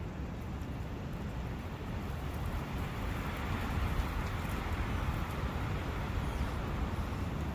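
Forest ambience by a brook: a steady rushing of wind with a low rumble, swelling in a gust from about three seconds in.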